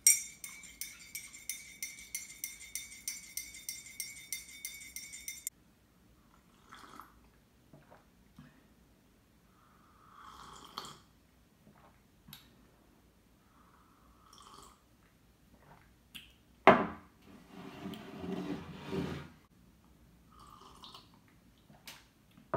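Teaspoon stirring in a ceramic mug, clinking against the sides about three times a second with a ringing tone, stopping abruptly after about five seconds. Then a few soft sips, and later a sharp knock followed by a couple of seconds of rustling.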